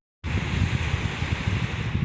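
Sea surf washing in, with wind buffeting the microphone. The sound cuts out completely for a moment at the start, then returns at a louder surge.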